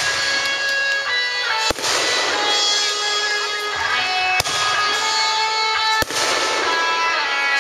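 Music of sustained notes that change pitch every second or so, over a steady hiss, broken by three brief sharp clicks.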